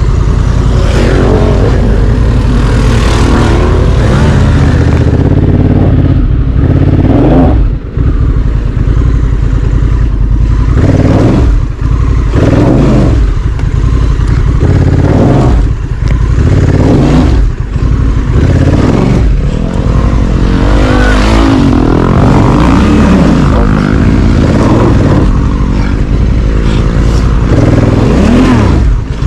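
Honda Africa Twin CRF1100's parallel-twin engine being ridden off-road, revving up and falling back again and again over a constant low rumble. Its loudness drops briefly a few times.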